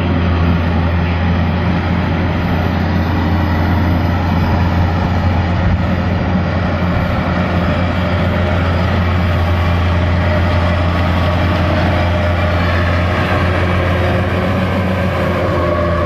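Diesel engine of a Kubota DC-93 crawler combine harvester running hard with a steady low drone as it crawls through deep mud.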